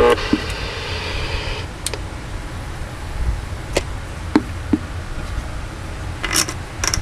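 Scattered sharp clicks, about eight of them, from switches and knobs on a CB radio and its microphone being handled, over a low steady hum.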